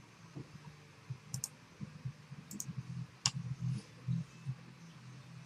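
A few sharp clicks of a computer mouse: two quick pairs and then a single click, over a quiet background.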